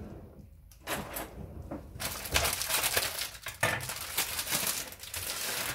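Irregular rustling and small knocks of kitchen items and packaging being handled on a worktop, starting about two seconds in.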